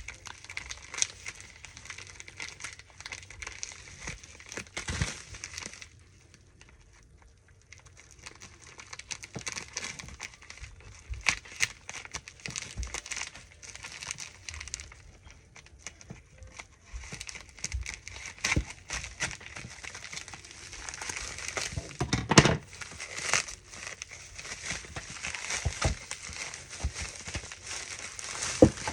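Plastic packaging and paper being handled and crinkled while a package of planner stickers is unwrapped, with a brief quieter lull about six seconds in and louder rustling and knocks later.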